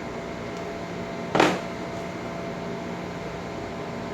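Steady mechanical hum in a small room, with one brief sharp clatter about a second and a half in.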